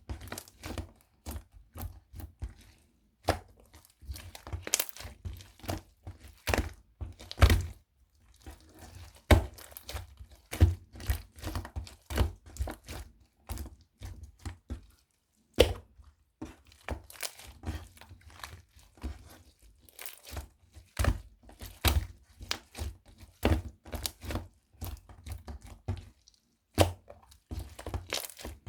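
Small beads being handled, with irregular clicking and crackling taps, some louder knocks among them.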